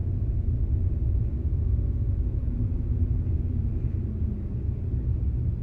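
Steady low rumble of an airport people-mover train running along its guideway, heard from inside the car.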